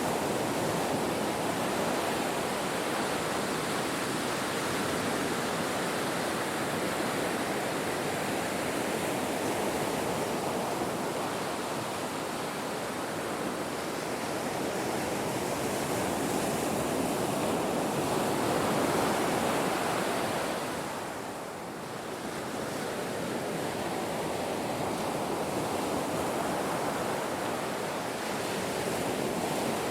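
Ocean surf washing continuously onto a shore, swelling and easing as waves break, with a brief lull about two-thirds of the way through.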